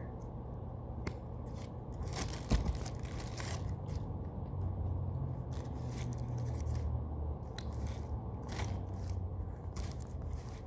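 Scissors snipping and scraping irregularly through a foam squishy toy, with the sharpest snip about two and a half seconds in, over a steady low hum.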